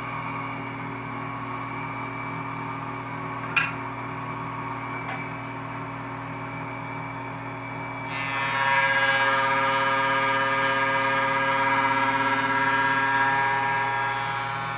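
A wood shaper running a cope-and-stick router bit, with a steady motor hum and one sharp knock about three and a half seconds in. About eight seconds in the sound turns louder and brighter with a high whine as the bit cuts the cope profile into the end of a rail, easing off near the end.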